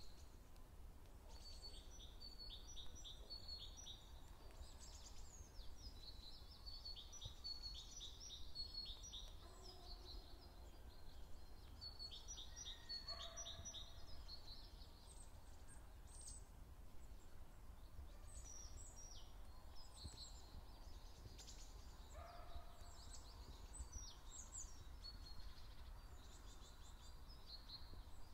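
Small songbirds chirping and trilling continuously in woodland, faint and quick high notes, with a few lower calls from another bird about ten, thirteen and twenty-two seconds in, over a low steady rumble.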